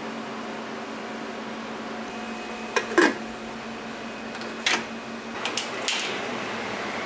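Stainless pressure cooker lid clanking onto the pot and being locked in place, the loudest clank about three seconds in. Near the end the gas burner clicks and lights, followed by a steady hiss of flame over a steady background hum.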